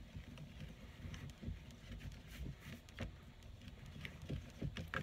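Hands rolling and patting a lump of air-dry clay into a ball against a cardboard-covered table: soft irregular thumps and rubbing with a few light taps.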